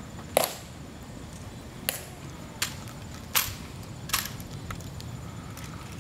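Sharp, crisp clicks of a Tomb guard's metal-tapped shoes striking the marble plaza. There are five clicks, the first the loudest, then roughly one every three-quarters of a second.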